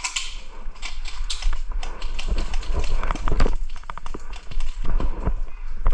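Footsteps of a player moving quickly over hard ground and rubble: an uneven run of short knocks and scuffs, over a steady low rumble.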